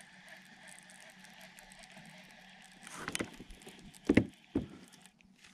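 Knocks and handling noises on a fishing kayak: a short scuffle about three seconds in, then two loud knocks half a second apart, over a faint steady hum.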